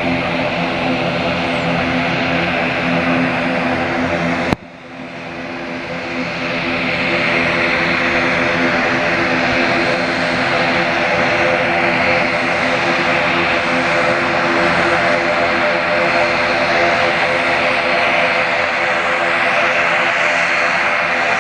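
ATR 72-600 turboprop, its two Pratt & Whitney PW127M engines and propellers running with a steady droning hum. About four and a half seconds in the sound breaks off abruptly, then builds back up over a couple of seconds and holds steady, a little louder.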